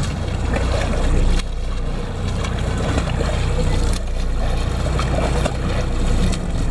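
Support boat's engine running steadily, a constant low hum under the wash of choppy water.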